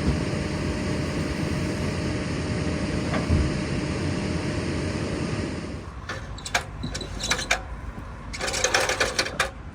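A heavy construction machine's diesel engine running steadily, with a single knock about three seconds in. About six seconds in the engine noise drops away, and a run of sharp clicks and scraping knocks follows.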